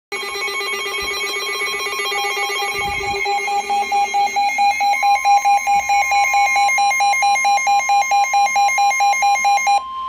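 Midland NOAA weather radios sounding their warning alarm: loud, buzzy electronic beeping that turns into fast pulsing, about five beeps a second, near the halfway point. A steady high alert tone joins it and carries on after the beeping stops just before the end: the weather radio alert for a severe thunderstorm warning.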